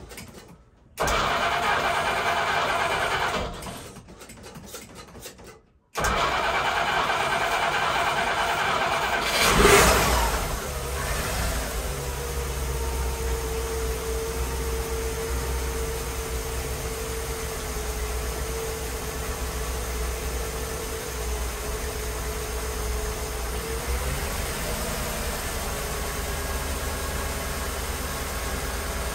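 Chrysler inboard marine engine running at idle while it warms up to operating temperature. The sound drops away twice in the first six seconds. About ten seconds in it rises sharply, then settles into steady running with a faint whine.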